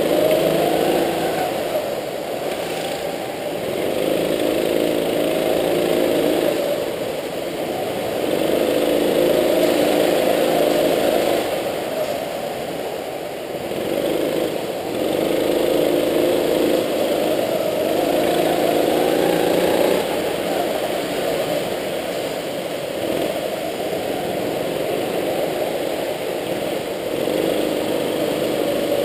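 Go-kart engine heard from onboard, revving up and easing off again and again as the kart laps, with its pitch and loudness rising and falling every few seconds.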